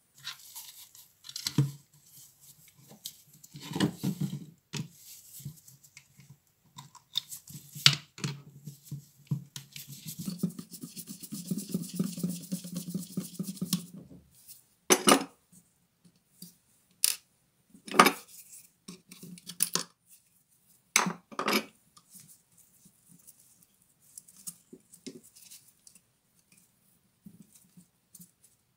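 Handling noise from taking apart a Bosch GWS 7-125 angle grinder's switch and brush-holder wiring: scattered sharp clicks and knocks of small plastic and metal parts, with a few seconds of scraping and rubbing near the middle.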